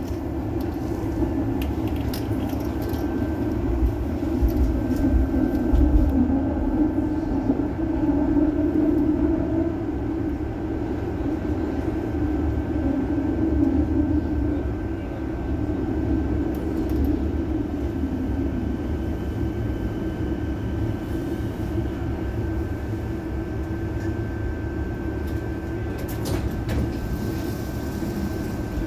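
Tram running along street track, heard from inside the car: a steady low rumble of the wheels on the rails with a thin steady whine over it, and a few short clicks near the end.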